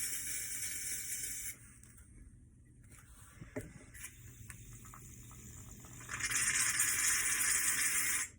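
Aerosol shaving cream can spraying in two long steady hisses, the first stopping about a second and a half in, the second starting about six seconds in, with a few light knocks and taps between.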